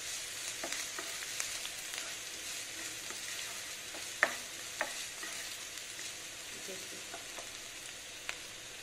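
Chopped onion sizzling gently in oil in a nonstick frying pan over a low flame, cooking toward brown, while a plastic spatula stirs it; a few sharp clicks of the spatula against the pan, the loudest about four and five seconds in.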